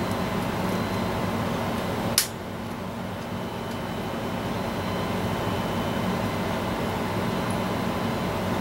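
A plastic heatsink retention pin gives one sharp click as it is pressed through the motherboard, about two seconds in, over a steady fan-like hum.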